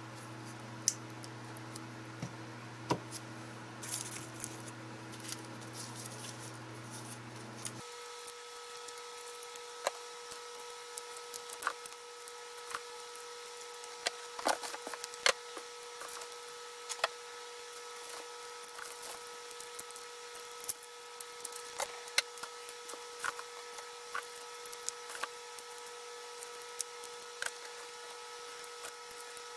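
Hands rummaging through a box of lithium battery packs and foam packing peanuts: irregular light clicks and clatters as the packs knock together, with rustling of the peanuts. Under it runs a steady faint hum whose tone changes about eight seconds in.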